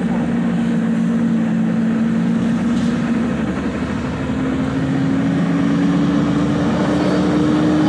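Engine hum and road noise from a moving road vehicle, steady at first, the engine's tone rising slowly in pitch through the second half.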